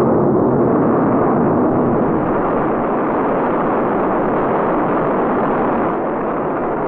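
The eight kerosene–liquid-oxygen rocket engines of a Saturn I booster stage firing together on a static test stand: a steady, unbroken noise that dips slightly about six seconds in.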